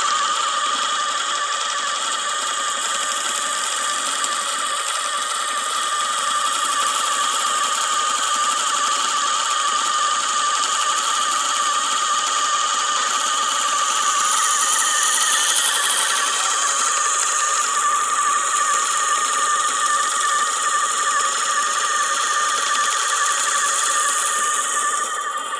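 Homemade motor-driven yarn-twisting machine running steadily, its bobbin of yarn spinning fast on metal bearings with a continuous high whine. The pitch shifts slightly about two thirds of the way through.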